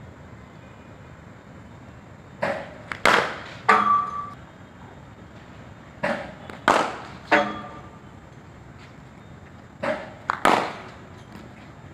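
Cricket ball deliveries in a practice net: three times, about every four seconds, a quick run of sharp knocks as the ball pitches on the concrete and cracks off the bat, some hits leaving a short ringing note.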